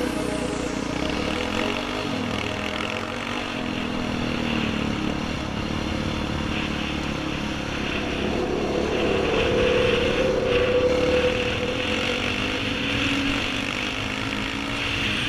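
Yamaha sport quad bike's engine running while riding, its pitch rising and falling with the throttle and loudest about two-thirds through, over wind noise on the helmet-camera microphone.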